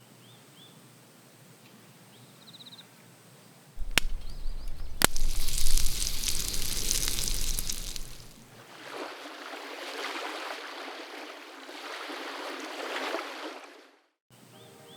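Lake water sloshing and lapping, in two noisy stretches that are cut together, the first louder than the second. Faint bird chirps come before it, and two sharp clicks about four and five seconds in.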